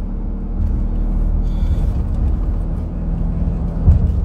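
Car driving on a paved road, heard from inside the cabin: a steady low rumble of engine and tyres, with one short low thump near the end.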